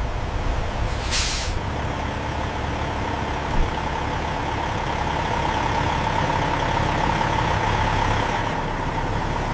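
Heavy diesel engine running low and steady under a constant whine, with a short sharp hiss of released air about a second in.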